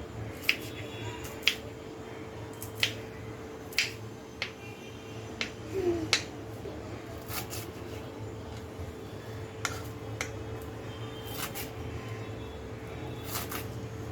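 Irregular sharp clicks and taps of kitchen utensils, roughly one a second, a few of them ringing briefly like metal, over a steady electrical hum.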